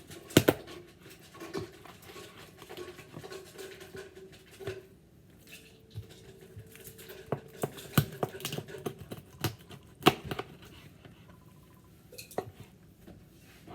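Kitchen clatter from cutting up a raw chicken: irregular knocks, taps and scrapes of a knife and cookware on a cutting board. The loudest knocks come about half a second in, about eight seconds in and about ten seconds in.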